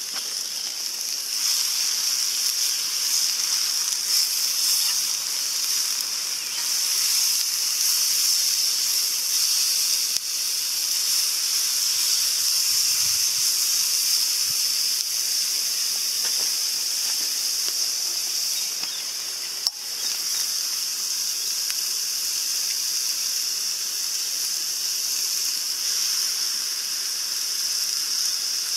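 Food sizzling in a frying pan on a small gas camping stove, a steady high hiss that swells slightly a second or two in as it is stirred. One sharp click sounds about two-thirds of the way through.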